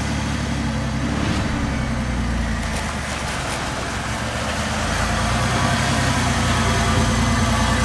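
Jeep Wrangler LJ's 4.0-litre inline-six engine running steadily just after being started, growing a little louder in the second half.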